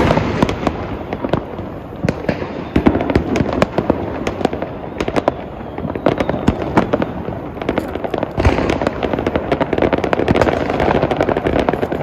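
Firecrackers going off in a rapid, dense run of sharp cracks and bangs, many each second, with no pause.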